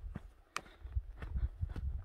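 A hiker's footsteps on a trail at a steady walking pace, about two to three steps a second, with a sharper click about half a second in and a low rumble underneath.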